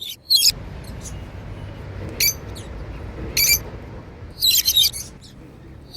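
Lovebirds chirping: short, sharp, high-pitched bursts about four times, the longest cluster near the end, over a steady low background hum.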